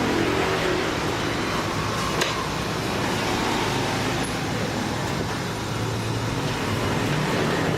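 Steady mechanical background noise, like passing road traffic or a motor running, with a single sharp click about two seconds in.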